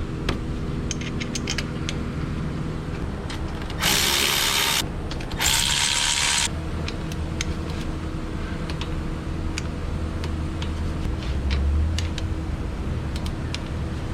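Light clicking and ratcheting of hand tools over a steady shop hum. Two hisses of about a second each come about four and five and a half seconds in.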